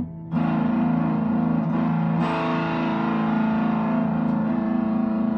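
Electric guitar played through a breadboarded op-amp fuzz circuit: a TL072 dual op amp with LEDs as clipping diodes in its feedback loop, giving a heavily distorted, sustaining fuzz tone. A chord is struck after a brief gap near the start, and the notes change about two seconds in, each ringing on.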